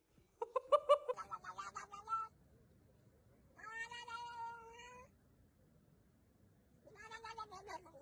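Cats meowing: a quick run of short chirping meows that rise in pitch, then one long drawn-out meow, and a shorter meow near the end.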